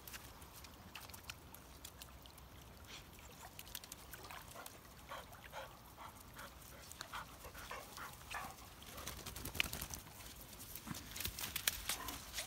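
A dog's faint whimpering among scattered short clicks.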